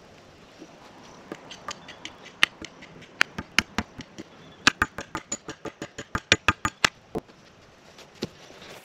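Hammer blows on a timber garden-bed edging board, a run of about two dozen sharp knocks that speed up to three or four a second and stop about seven seconds in, with one more knock near the end.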